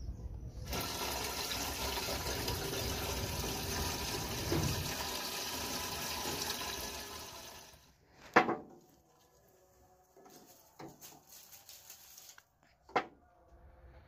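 Water gushing steadily out of the plastic tap at the base of a homemade oil-tin water heater, starting suddenly and dying away after about seven seconds. Then two sharp knocks, several seconds apart.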